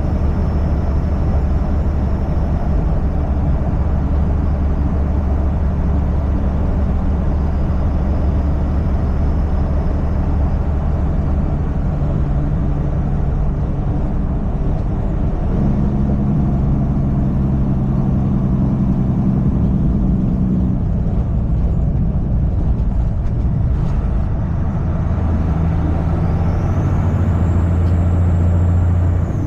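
Semi truck's engine droning steadily, with a constant rush of road noise. The engine note shifts in pitch several times during the drive.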